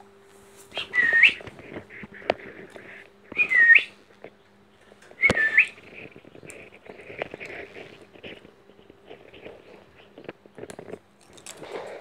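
Young rose-ringed parakeet giving three short whistles a couple of seconds apart, each dipping slightly and then sweeping sharply up. Faint scratching and clicks follow as it shifts along the wooden perch.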